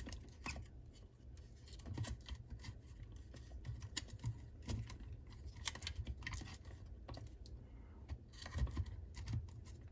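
Fingers pressing and tucking a tape-wrapped battery pack and its wires into a plastic lantern base: irregular small clicks, taps and rustles of handling.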